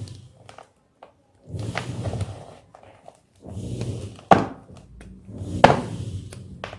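White gym chalk being crunched in three bouts of crumbly crackling, each about a second long, with two sharper cracks, one a little past the middle and one later on as pieces snap.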